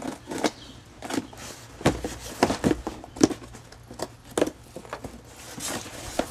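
Cardboard shipping box being opened by hand: packing tape cut at the box's end and the flap pulled open. It gives a string of sharp, irregular knocks, clicks and scrapes on the cardboard.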